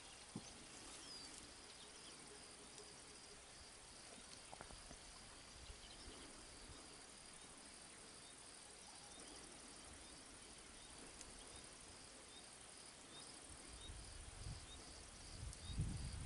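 Faint insects chirping in a steady, regular pulse over quiet evening ambience. Low rustling noise starts near the end.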